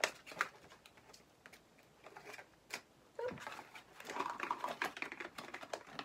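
Irregular sharp clicks and taps with some rustling, from small plastic doll parts and cardboard and plastic packaging being handled during an unboxing.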